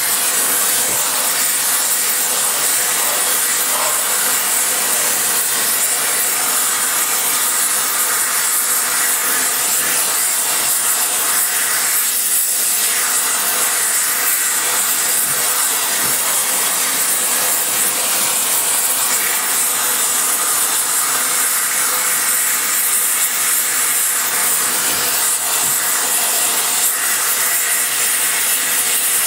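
Powder spray-welding torch flame hissing steadily as weld is laid into a preheated cast iron cylinder head.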